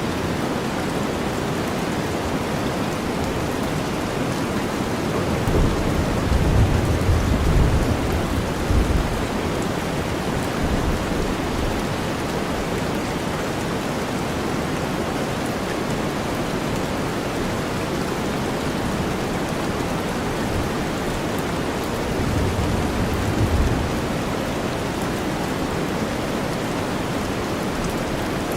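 Steady rain mixed with deep white noise, with low rumbles of distant thunder swelling twice, about six seconds in and again near twenty-three seconds.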